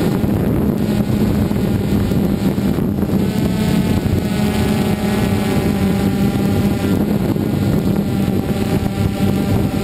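DJI Phantom 2 quadcopter's motors and propellers, heard from its own mounted camera: a loud, steady buzzing hum whose pitch wavers slightly as the motors adjust to hold the hover.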